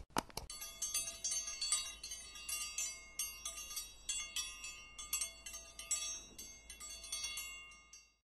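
A click, then tinkling chimes: many high, overlapping struck notes ringing on irregularly and fading out near the end.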